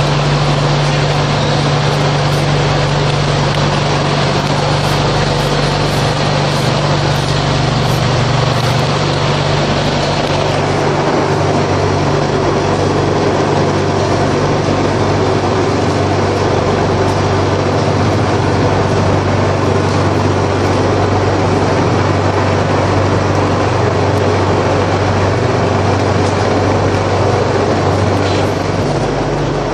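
Paver-block making machinery running with a loud, steady low hum. The hum drops to a lower pitch about ten seconds in.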